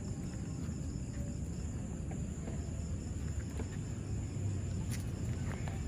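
Night outdoor ambience: insects, crickets, keeping up a steady high-pitched drone over a low background rumble, with a few faint clicks, the clearest about five seconds in.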